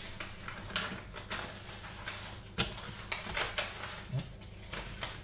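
Paper rustling as sheets of craft paper are handled and pulled from a pad, with scattered light knocks and clicks.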